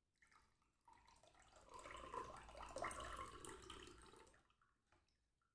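Freshly squeezed lemon juice being poured into a glass: a faint trickle of liquid starting about a second in and tailing off near the end.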